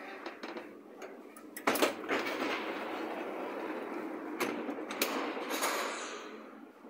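Berlin U-Bahn HK-type train heard from on board. There is a loud knock a little under two seconds in, then several seconds of running noise with scattered clicks, which fades near the end.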